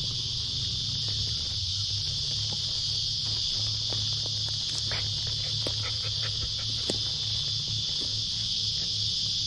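Insect chorus, a steady high-pitched buzz that does not let up, with a few faint scattered clicks beneath it.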